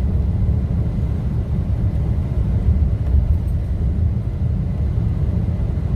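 Toyota Tacoma pickup driving, heard from inside the cab: a steady low rumble of engine and road noise.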